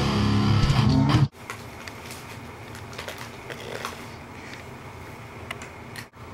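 Guitar music that cuts off abruptly about a second in, followed by quiet room sound with a few faint small ticks.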